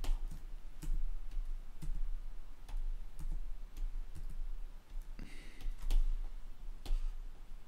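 Scattered clicks of a computer mouse and keyboard keys, irregular and roughly one every half second to a second, over a steady low electrical hum.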